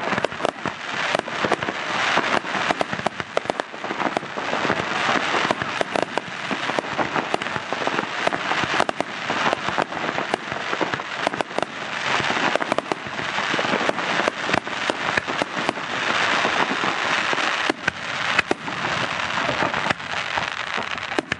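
Aerial fireworks display: a continuous barrage of shell bursts, many sharp bangs in quick succession over a dense hiss.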